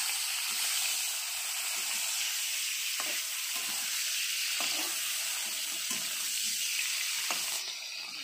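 Kouwal fish frying in hot mustard oil in an aluminium kadhai: a steady sizzle, with a metal spatula now and then scraping the pan as the fish is turned. The highest part of the sizzle cuts off suddenly near the end.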